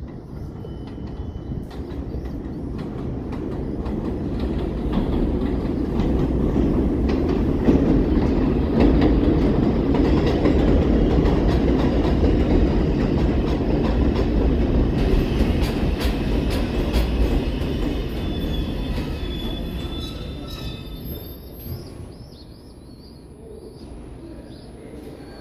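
An R142 subway train pulling into an elevated station: the rumble and clatter of its wheels on the steel rails build over the first several seconds, hold, then die away as it slows to a stop. High squeals ring out in the second half as it brakes.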